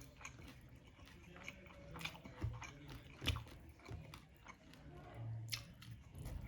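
Close-up eating sounds: biting and chewing food, with a few sharp clicks and crunches scattered through.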